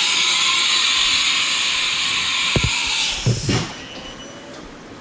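A loud, steady hiss at the CNC mill that cuts off suddenly about three and a half seconds in, with a couple of knocks near its end.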